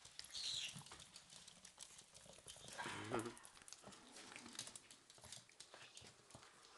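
Faint, irregular clicking of chihuahua puppies' claws on a tiled floor as they scamper about, with a short, falling puppy whimper about three seconds in.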